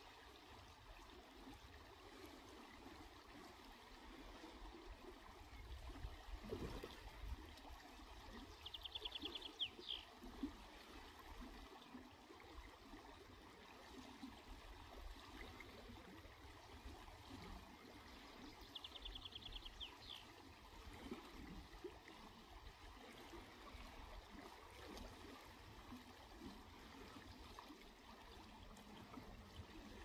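Faint steady rush of river water, with a songbird in the distance singing a short, rapid phrase of high notes twice, about ten seconds apart.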